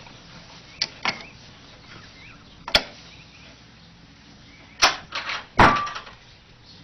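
A series of about six sharp wooden knocks and clatters, spaced irregularly, the loudest near the end: a cat working the latch and door of a wooden puzzle box.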